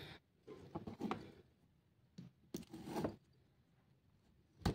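Short scattered rustles and clicks of hands handling a battery pack, its wires and a pair of side cutters, with a sharper click near the end.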